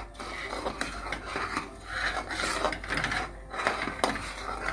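A spoon scraping against the bottom and sides of a cooking pot as thick, fully cooked dal makhani is stirred, in repeated strokes.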